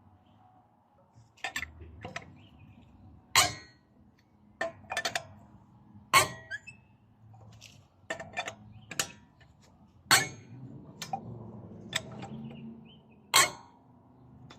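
Hard objects knocking and clinking together in irregular, separate strikes. About four are much louder, spread a few seconds apart, with lighter taps between them.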